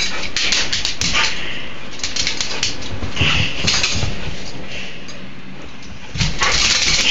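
A dog scrambling about chasing a laser pointer dot, with scattered clicks and scrabbling, mixed with rustling handling noise on the phone microphone.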